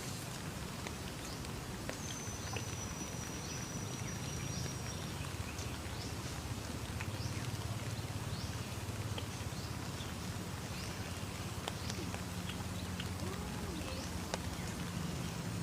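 Outdoor ambience: a steady low hum under many short, high, falling chirps, with a thin high whistle-like tone lasting a few seconds early on.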